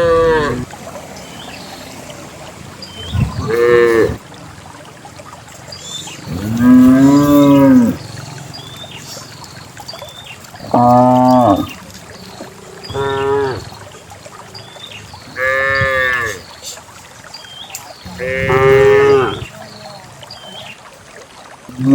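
Cows in a herd mooing again and again, about seven long calls a few seconds apart, some lower and some higher in pitch.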